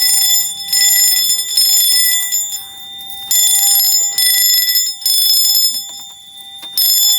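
Fire alarm sounder going off in the temporal-three evacuation pattern: three short, high-pitched blasts, a pause of about a second, then three more, with the next group starting near the end.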